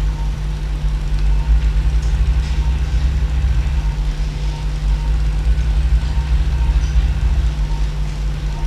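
Arthroscopic shaver running steadily: a continuous low motor rumble with a faint steady tone above it.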